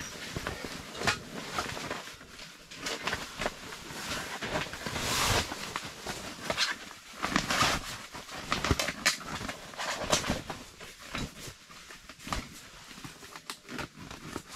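Folded camping cot being worked into its heavy canvas carry bag: fabric rustling and scraping, with irregular clicks and knocks from the cot's frame.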